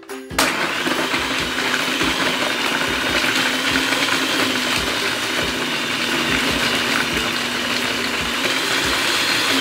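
Electric food processor switched on about half a second in, its motor running steadily with a low hum and a higher whine as the blade chops horse chestnuts (conkers) into a fine meal.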